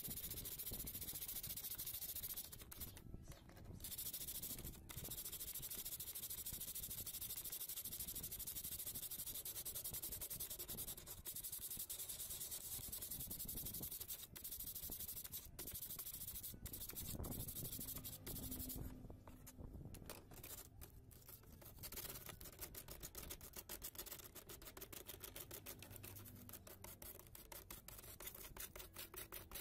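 Sandpaper rubbing back and forth on the white plastic palm rest of a laptop, smoothing the ragged edge of a broken hole, a steady scratchy rasp with brief pauses. In the last third it turns to short, quick strokes.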